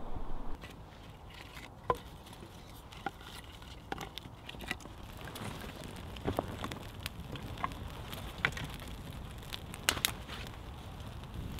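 Campfire of dry twigs crackling, with irregular sharp pops and snaps as the fine wood catches. The crackle grows fuller about halfway through.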